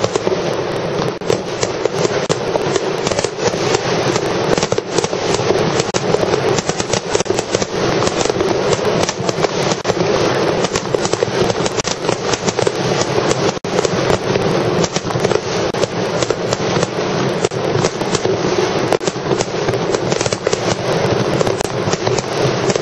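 Aerial fireworks in a dense, continuous barrage: shell bursts and crackling follow one another so closely that they run together without a pause.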